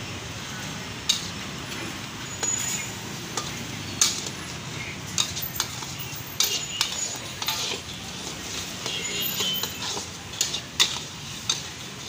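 Metal spatula scraping and clanking against a steel wok as chopped meat in sauce is stirred, in irregular knocks with a few sharper strikes, over a steady low background rush.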